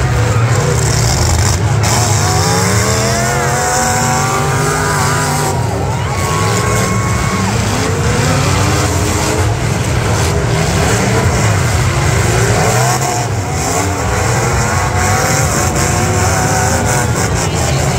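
Several V8 demolition-derby car engines revving hard over a constant heavy rumble, their pitch rising and falling repeatedly as the cars push and spin their tires.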